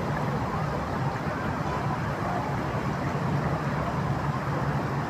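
River water flowing steadily in a continuous rush, with a low steady hum beneath it.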